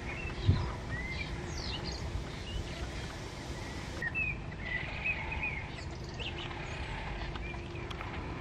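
Small birds chirping now and then in short, quick notes over a steady low background rumble.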